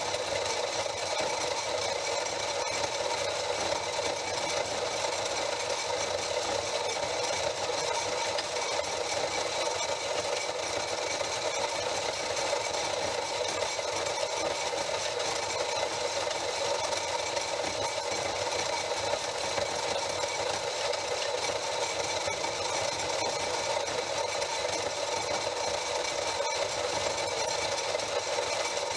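A machine running steadily, with a light rattle and no change in speed.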